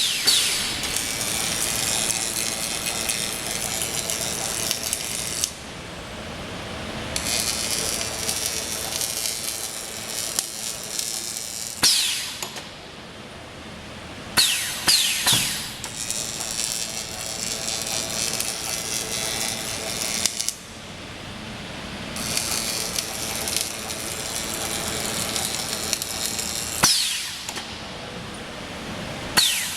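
Double-torch flatbed laser welding machine running: a loud, steady buzzing hiss that drops away and starts again three times. Short falling whines come near the stops and starts.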